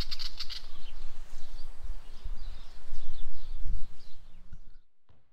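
Birds chirping over a low, buffeting wind rumble on the microphone, with a quick run of chirps at the start. The sound cuts off abruptly shortly before the end.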